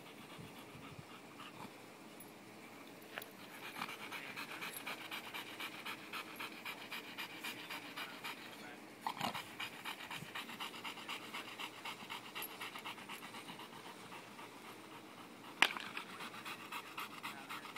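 A dog panting hard, close by, in quick regular breaths of about three to four a second. A single sharp click about sixteen seconds in is the loudest sound.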